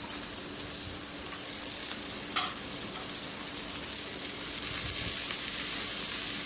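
Shredded cabbage, carrot and beans sizzling in hot oil in a non-stick pan as they are stirred with a spatula. There is a brief knock about two and a half seconds in, and the sizzle grows louder in the second half.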